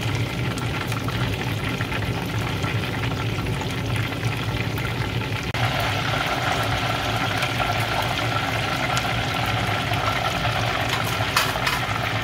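Whole chicken deep-frying in a pot of hot oil, a steady sizzling and bubbling over a low steady hum, with a few clicks near the end.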